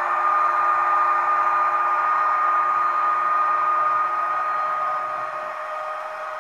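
Sound decoder in an H0 model ÖBB 1116 Taurus electric locomotive playing the loco's traction converter whine as the train pulls away. It is a steady high whine with a lower tone beneath it that fades out about five seconds in, heard through the model's small loudspeaker.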